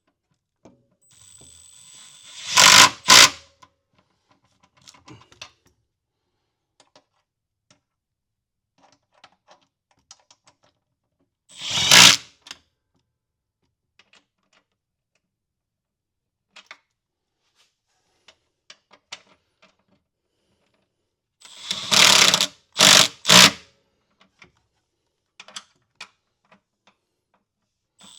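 Small handheld power tool run in short bursts of about a second, once early, once near the middle and three times in quick succession later, with light metallic clinks of tools in between, as fasteners are being run off.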